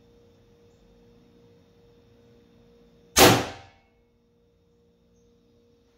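A single shot from a Valken M17 air rifle running on high-pressure air and firing an 8-gram Grimburg round: one sharp report about three seconds in with a short ringing tail. A faint steady hum lies underneath.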